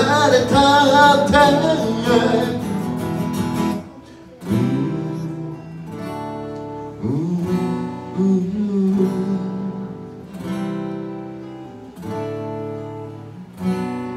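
A man holds a long sung note with vibrato over acoustic guitar, ending about four seconds in. After that, acoustic guitar strums chords alone as an interlude, a new chord every second or so.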